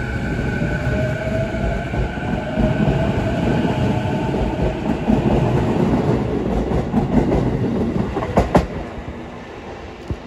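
Sotetsu 11000 series electric train accelerating away along the platform: rumbling wheels on rail under a motor whine that rises in pitch. Two sharp clacks about eight seconds in, then the sound falls away near the end.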